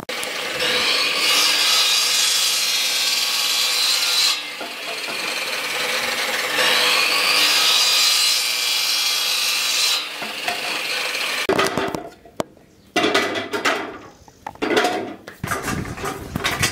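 Bamboo being worked by hand for basket making: a steady scraping noise in two long stretches, broken about four seconds in, then a run of irregular sharp knocks and taps from about eleven seconds on.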